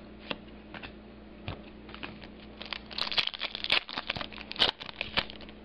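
Trading cards and their pack being handled and flipped through by hand: a run of short crinkles and clicks, sparse at first and thickest about three seconds in.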